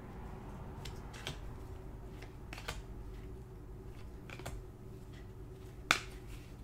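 Trading cards being flipped through in gloved hands: a scattering of light clicks and flicks of card stock, the sharpest about six seconds in, over a faint steady hum.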